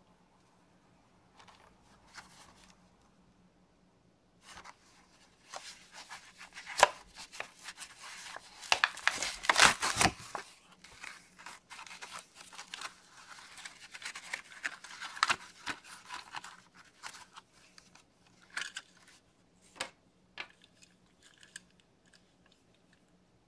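Cardboard backing and clear plastic blister of a toy car package being torn open and crinkled by hand, with sharp snaps and crackles. The loudest tearing comes about nine to ten seconds in; near the end only scattered crinkles and clicks remain as the die-cast car is freed.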